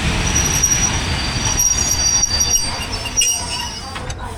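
Passenger train running on the rails with a heavy rumble and a high-pitched metallic squeal of the wheels that comes and goes, fading toward the end.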